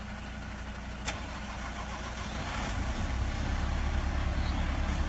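A heavy engine running with a steady low rumble that grows louder about three seconds in, with one sharp click about a second in.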